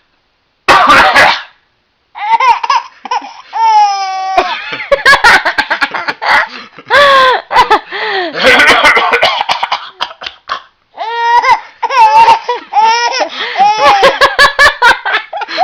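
An adult's cough about a second in, then a baby laughing hard in repeated runs of giggles and breathy belly laughs, with short gaps between them.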